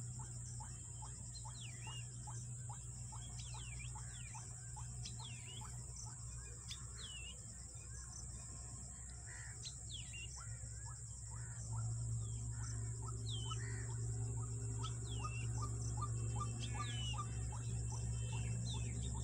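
Outdoor night ambience: a steady high-pitched drone and a low steady hum under many short chirping calls. The hum grows louder about twelve seconds in.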